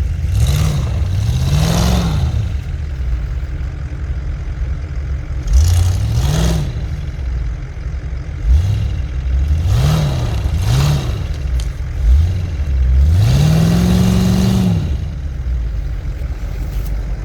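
Off-road vehicle's engine revved in repeated bursts, its pitch rising and falling about seven times, with a longer, higher rev held near the end.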